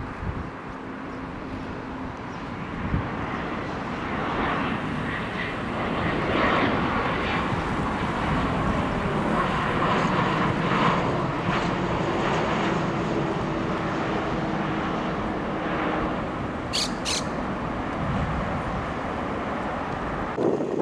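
Gulfstream business jet on approach with gear down, its two turbofans heard as a jet rush that builds over several seconds and then slowly eases as it passes. Two short high chirps sound about three-quarters of the way through.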